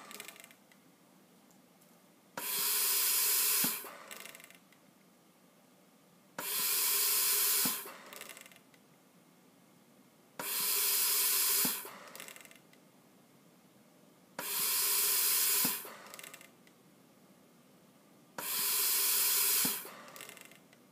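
Bird Mark 8 pneumatic respirator cycling into a test lung. Each breath starts with a click, hisses for about a second and a half as gas flows in, then gives a short fainter puff as it cycles off. Five breaths come evenly about four seconds apart, roughly 15 to 16 a minute, still short of the 20 being set.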